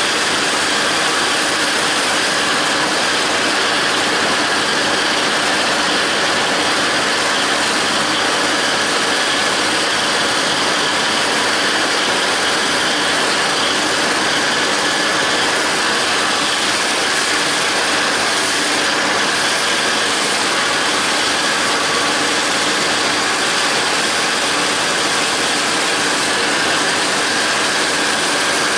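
John Deere 5320 tractor's diesel engine running steadily under load, driving a John Deere 270 disc mower through the PTO, with the whir of the mower's spinning cutter discs and gearbox as it cuts standing grass hay.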